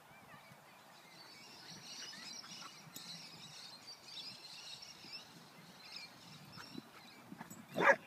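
A dog barking once, loudly, near the end, in rough play between two dogs. Faint, wavering high-pitched squeaks come before it.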